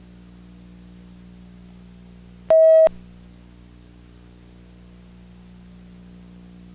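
Steady electrical hum and buzz. About two and a half seconds in, one short, loud electronic beep of a single pitch cuts in and out sharply.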